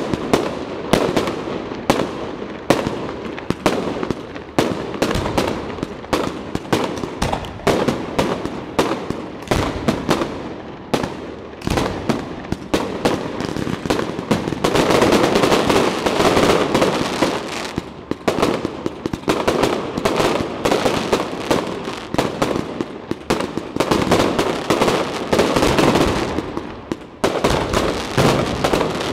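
Aerial fireworks display: a rapid, irregular string of shell bursts and bangs with crackle. From about halfway through it thickens into a near-continuous barrage.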